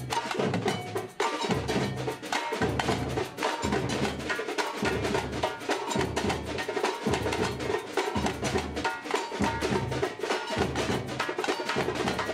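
Samba percussion band playing live: deep drum beats land about once a second under a dense, fast rattle of higher drums and small hand percussion.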